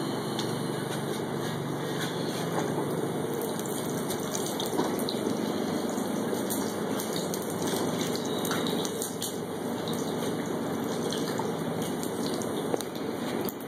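Hot knife blade quenched in a tank of oil during heat treating: a steady hiss with frequent small crackles as the oil sizzles and burns on its surface.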